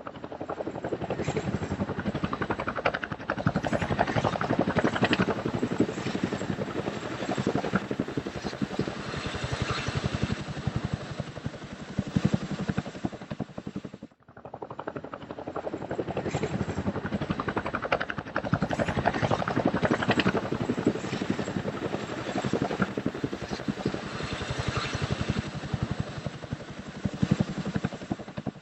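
Helicopter rotor and engine noise, a steady rapid rotor beat, cutting out briefly about halfway and then resuming.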